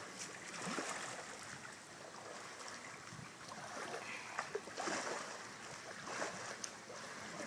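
Water washing and splashing along the hull of a small sailboat under way, an uneven rushing with a few brief splashes.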